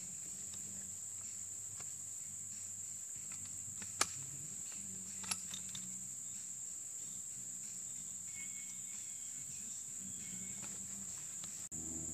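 Steady, high insect chorus, with two sharp clicks about four and five seconds in.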